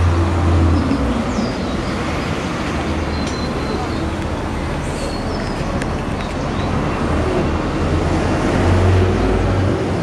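Road traffic: a steady noise of passing vehicles, with a low engine hum that swells near the start and again near the end as vehicles go by.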